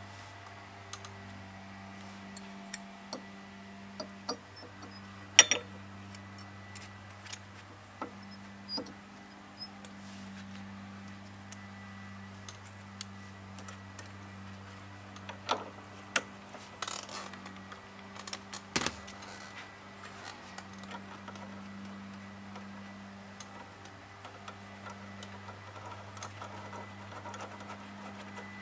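Scattered light metallic clicks and clinks of steel shim washers and the split generator pulley half being handled and slid onto the pulley shaft of an air-cooled VW Beetle engine, with a few sharper knocks, over a steady low hum.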